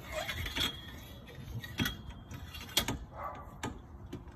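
Small hoist for lifting an outboard engine being worked and raised by hand, giving a few irregular metal clicks and clanks from its arm and mechanism.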